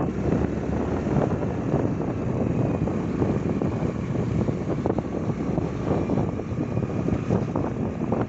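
Wind buffeting the microphone of a moving motorbike, with the bike's engine and tyre noise running underneath at a steady cruise.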